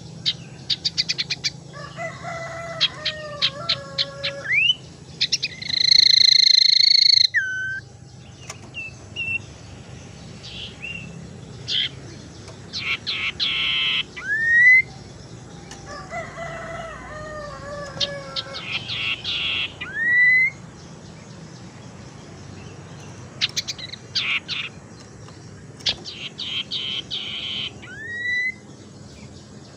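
Common iora (cipoh) singing a varied song: rapid clicking trills, warbled phrases and short rising whistles, with one long, loud held note about six seconds in.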